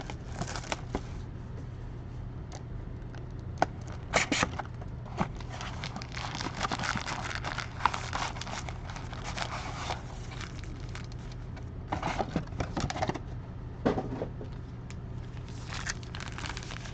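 Plastic and foil wrapping crinkling and tearing in uneven stretches, with a few sharp clicks: a hobby box of baseball cards and its packs being opened by hand. A steady low hum runs underneath.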